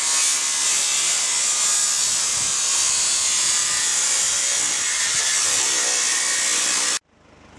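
Power tool steadily cutting through the old vehicle's sheet-metal bodywork with a loud, hissing rasp that cuts off abruptly near the end.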